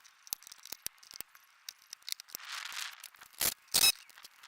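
Plastic trim clips being pried out of a car's fender liner with a trim tool: scattered clicks and rattles, then two loud snaps near the end.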